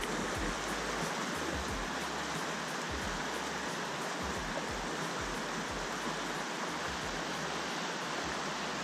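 Steady rushing of river water over rapids.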